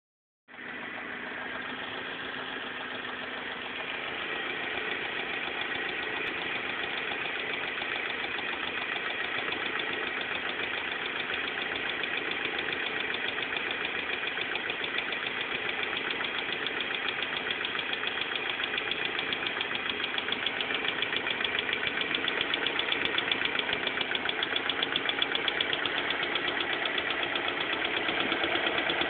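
BMW M42 four-cylinder engine running steadily with a fast, even pulsing, slowly getting louder.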